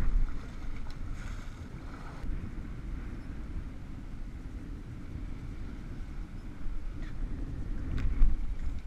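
Wind rumbling on the microphone over choppy sea water sloshing around a small boat. A short sharp knock comes near the end.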